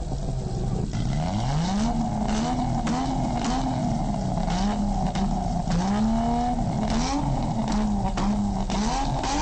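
A radio giving out a car-engine-like sound, its pitch climbing about a second in and then rising and falling again and again like revving, over a steady hiss with scattered clicks.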